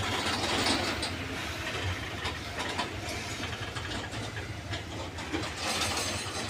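Freight train of bulk tank wagons rolling across a steel truss railway bridge: a steady low rumble with a scatter of short sharp clicks from the wheels on the rails.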